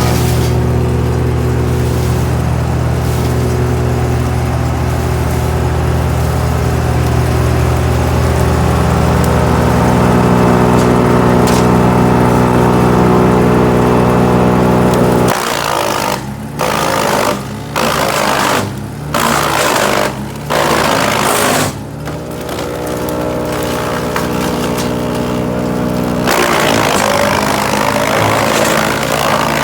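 GreenMech Arborist 150 wood chipper running steadily for about fifteen seconds. Its sound then changes abruptly and comes in about six short bursts with brief gaps between them, before running steadily again near the end.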